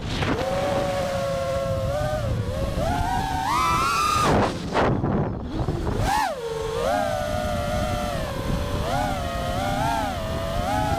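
6S FPV quadcopter's brushless motors whining, the pitch swooping up and down with the throttle. It drops sharply a little over four seconds in, then climbs and falls again around six seconds. A low wind rumble runs underneath.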